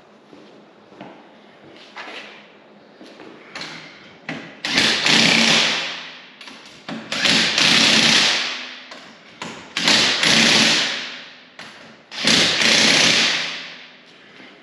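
Impact driver running lug nuts onto a side-by-side's wheel hub: four bursts of hammering, each about a second and a half long, starting sharply and tailing off, with light knocks and taps in between.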